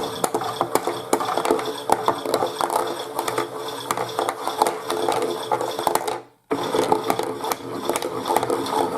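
Chad Valley pink toy washing machine tumbling its drum: a small electric motor runs with a dense clicking rattle. The motor cuts out briefly about six seconds in and then starts again, a pause in the machine's tumble timing action.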